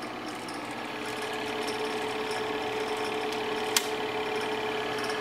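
Bell and Howell 253-AX 8 mm film projector running: its motor and film-advance mechanism whirring with a rapid, even ticking and a steady hum, a little louder from about a second in. A single sharp click sounds a little past the middle.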